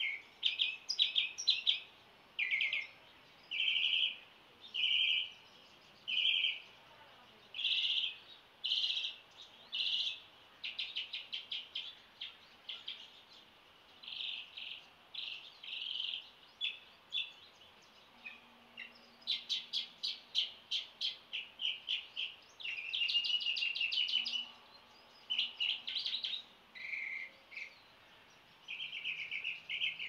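Dawn chorus of songbirds: a string of short chirps and quick trills, one after another with brief gaps, thickening into a dense run of rapid trilled notes a little past the middle.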